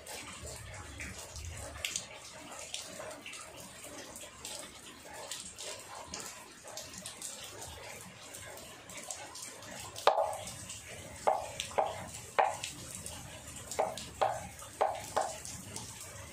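Water splashing and dripping in a basin as something is washed by hand. In the last six seconds there is a run of sharp splashes, about two a second.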